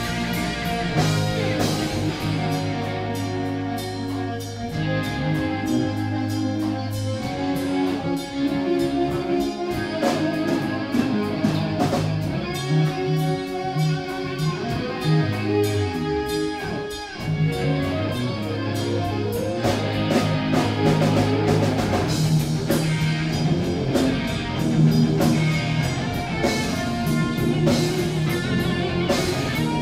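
A live rock band playing loudly: electric guitars, electric bass and a drum kit, with a brief drop in loudness about halfway through before the band comes back in full.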